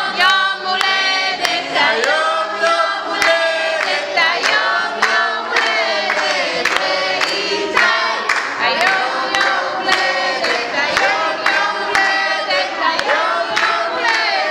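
A group of adults and children singing a birthday song together, with hands clapping along in a steady beat.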